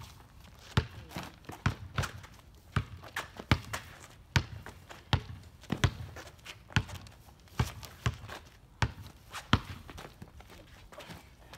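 Basketball dribbled on an asphalt driveway, a sharp bounce a little more than once a second, with footsteps between. The bouncing stops near the end.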